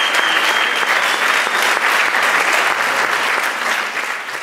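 Sustained applause from many people clapping their hands, dense and even, beginning to fade near the end.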